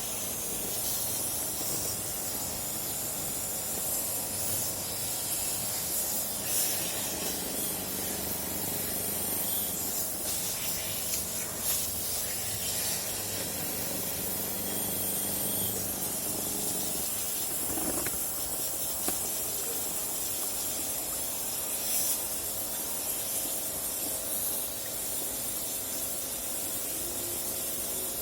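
Steady hissing water spray, as of a jet sprayer washing an air conditioner unit during servicing, with a few brief knocks along the way.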